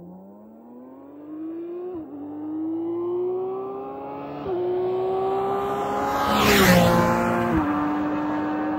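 BMW K1600 GTL's inline-six engine at wide-open throttle, revs climbing steadily through the gears with three quick upshifts, about two, four and a half and seven and a half seconds in. It grows louder as the motorcycle approaches, with a brief rush of wind and tyre noise as it passes about six and a half seconds in, then holds a steady note after the last shift.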